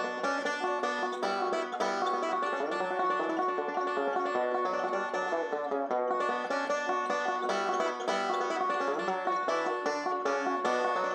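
Solo banjo playing a tune with quick, evenly picked notes.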